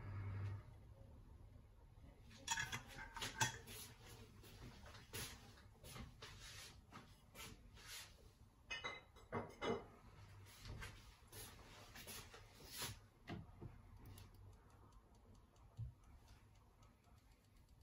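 Faint, irregular ticking and crackling from a stainless steel pot of milk heating on a glowing radiant ceramic hob, as the pot and milk warm up before the boil. The ticks come thick from about two seconds in and thin out after about thirteen seconds.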